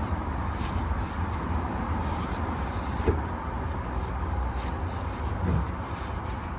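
Paper tissue rubbing and wiping oil off around a freshly tightened oil-pan drain plug, a dry rustling scrub, with one short knock about halfway through. A steady low rumble runs underneath.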